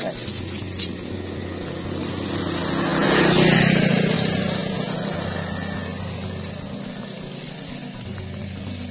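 A motor vehicle passing along the road: its sound builds, peaks about three and a half seconds in, then fades away.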